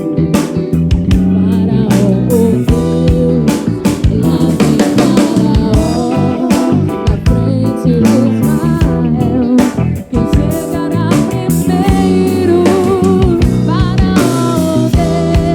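Live gospel band playing: drum kit, bass and guitars with keyboards under a melody line. The music briefly drops out about ten seconds in.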